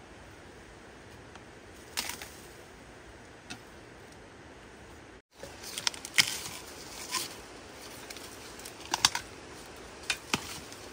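Scattered sharp snaps and crackles, several in quick clusters, over a steady outdoor background hiss; the sound drops out completely for a moment about halfway through.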